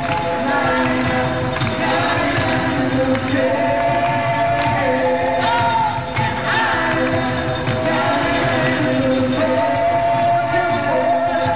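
Live rock band playing loudly, with several voices singing long held notes over the band.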